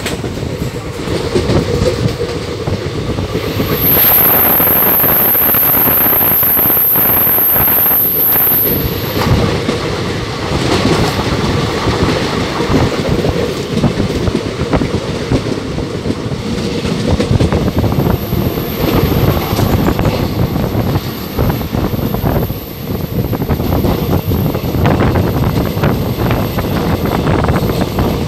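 Passenger train running at speed, heard from an open coach door: the steady noise of the wheels on the rails and the moving coach. A very high, thin, steady whine comes in about four seconds in for several seconds, and again on and off through the second half.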